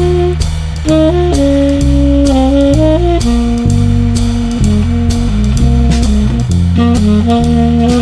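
Jazz music with a saxophone playing the melody over bass and a drum kit keeping a steady beat.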